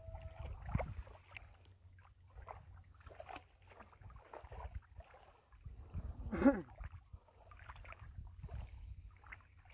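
Water sloshing with light splashes and small knocks as a fishing net is worked through shallow water, over a low wind rumble on the microphone. About six and a half seconds in there is a short voice-like cry, the loudest sound here.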